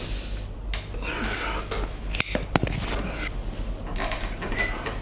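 A quick cluster of sharp cracks a little over two seconds in: spinal joints popping during a chiropractic back adjustment.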